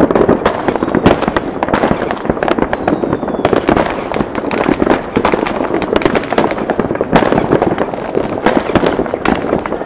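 Many fireworks and firecrackers going off at once across a city: a dense, unbroken din of overlapping crackles and distant bursts, with frequent sharp nearer bangs standing out.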